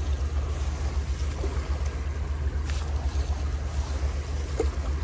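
Steady rush of shallow creek water, under a low wind rumble on the phone's microphone.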